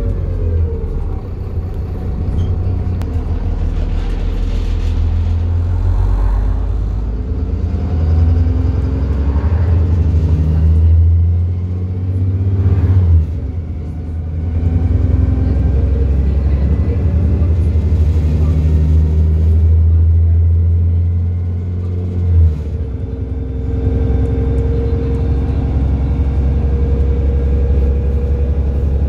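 Alexander Dennis Enviro 400 double-decker bus's diesel engine heard from on board, a deep steady rumble whose note rises and falls as the bus drives through its gears. The low drone drops away sharply about halfway through and again a few seconds later, then picks back up.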